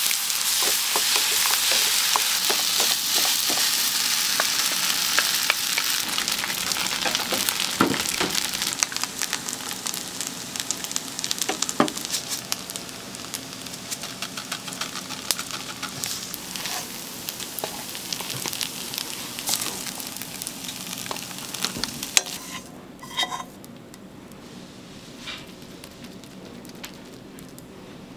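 Cup-noodle fried rice being stir-fried, with a sizzle and many short clicks and scrapes from the stirring utensil. The sizzle slowly fades and drops away about three-quarters of the way through, leaving a few scattered clicks.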